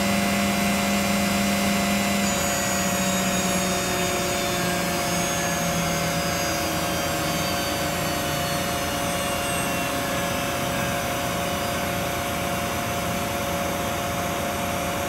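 Spindle of a Mazak Integrex 300-IIIS CNC lathe running at high speed, around 5,000 rpm, giving a steady whine. Some of its tones drift slowly lower after about two seconds.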